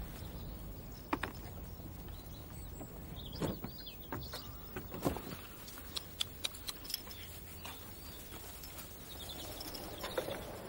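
Faint birds chirping in open country, with a few short clicks and knocks scattered through.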